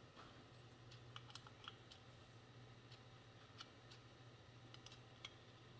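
Faint, scattered metal clicks of a small combination wrench on 8 mm grease nipples as they are snugged up in a motorcycle front brake backing plate, over a low steady hum.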